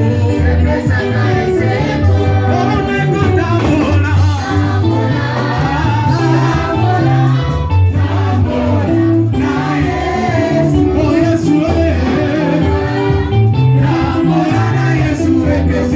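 Gospel music: a choir singing over a band with a moving bass line.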